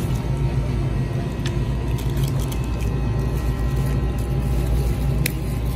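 Steady low rumble and hum, with a few faint clicks.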